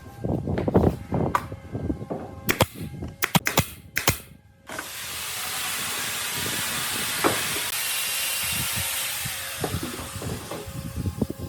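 A few seconds of knocking and clicking from workshop handling, then a steady spraying hiss that starts suddenly about five seconds in and runs for about six seconds, typical of compressed air or a spray finish being applied.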